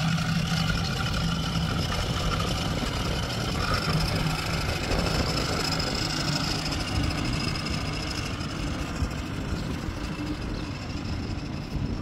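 Diesel engine of heavy earth-moving machinery running steadily, with a higher steady whine above the engine note; both ease off somewhat in the second half.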